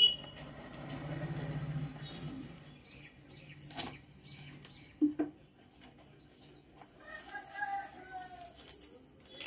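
Paper and cardboard delivery packaging being handled and torn open, with a few sharp crackles and clicks. From the middle on, small birds chirp quickly in the background.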